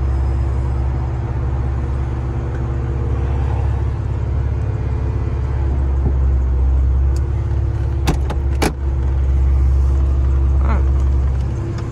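Porsche Boxster power soft top running as it closes, over the steady idle of the car's flat-six engine. Two sharp clicks about eight seconds in as the top meets the windshield frame.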